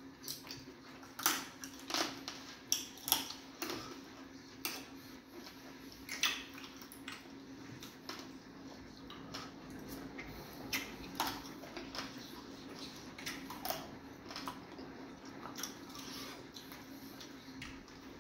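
Close-up eating sounds of fufu and meat eaten by hand: irregular wet mouth smacks and sharp clicks from chewing and fingers on plates, over a steady low hum.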